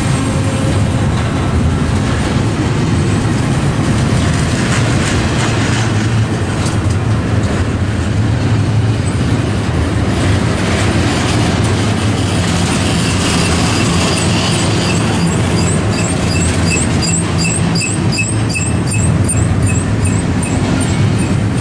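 Freight train rolling past, a steady loud rumble of wheels on rail. From about halfway a high ringing chirp joins in, repeating about twice a second.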